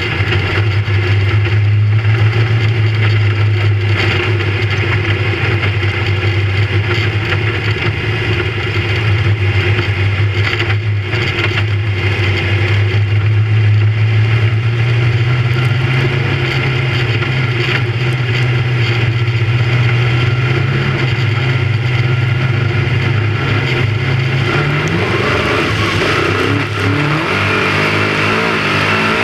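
Big-block V8 engine of a dirt-track modified race car, heard from inside the cockpit, running steadily at an even pitch that creeps up a little around the middle. Near the end it revs up sharply as the car accelerates.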